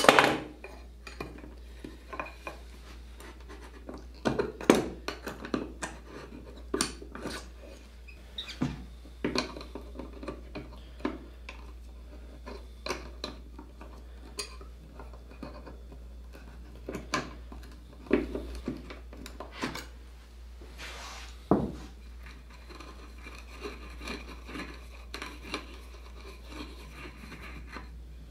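Metal hand tools clinking and a metal blade scraping and prying at the joint where a mahogany table leg meets its base, with irregular knocks and taps. The loudest clack comes right at the start.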